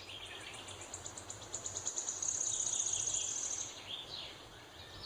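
Small birds chirping outdoors, with a high, fast trill that grows louder about two seconds in and stops near four seconds, over faint steady background noise.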